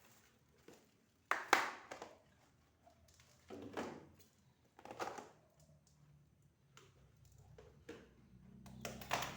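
Scattered knocks and clatter of household items being handled and set down, a few separate bumps and rattles with the loudest about a second in.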